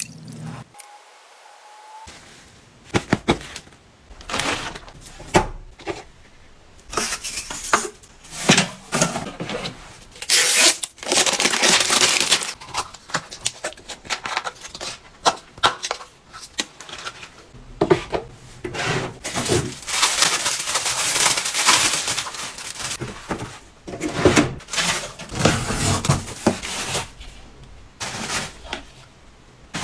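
Close-up handling of plastic bottles and packaging: crinkling and rustling plastic with sharp clicks and knocks of plastic bottles and snap caps, and bubble wrap rustling in a cardboard box.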